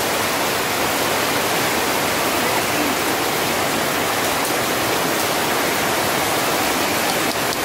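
Steady, unbroken rushing of water, even in level throughout.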